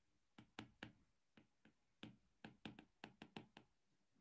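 Faint, irregular clicking of a stylus tapping on a tablet screen during handwriting: about a dozen short taps, bunched more closely in the second half.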